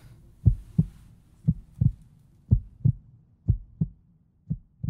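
Heartbeat sound effect: paired low thumps, lub-dub, about once a second, slowly growing fainter.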